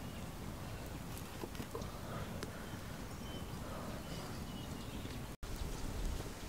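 Open wood fire burning, with a few faint crackles and knocks over a steady low background; the sound drops out for an instant about five seconds in.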